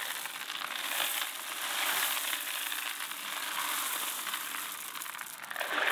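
White pathway gravel pouring in a steady stream out of a black plastic bucket onto bare soil, a continuous rattling hiss of small stones sliding and landing.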